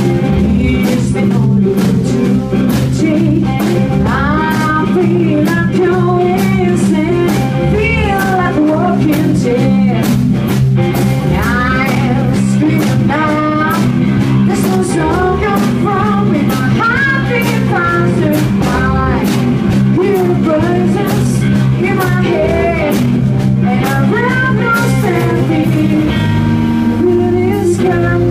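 Live blues-rock band: an electric guitar plays a lead line with repeated string bends over electric bass and a drum kit with steady cymbal strikes. The bass pattern changes near the end.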